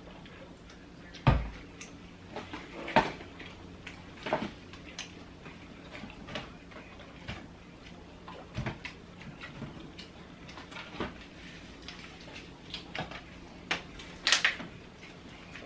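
Close-up eating sounds of chicken McNuggets: irregular mouth clicks and the knocks of handling food and packaging, with a heavy thump about a second in and a louder rustle near the end.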